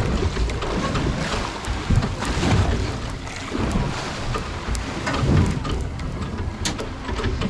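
Wind buffeting the microphone over choppy sea, with waves washing and splashing against the side of the boat in uneven surges.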